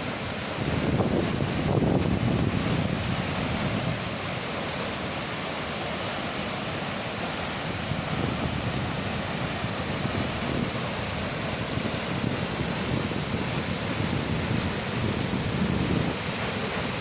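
Waterfall rushing steadily, a constant hiss of falling water, with wind buffeting the microphone and a stronger low rumble about a second in.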